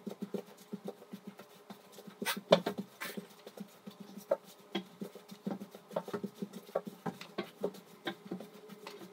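Feet patting and scuffing on the floor in irregular light steps as a person spins around in circles, with a louder scuff about two and a half seconds in.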